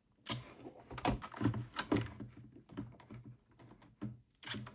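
Irregular clicks and knocks of a screwdriver and hands working on a 3D-printed plastic case as small screws are tightened into it.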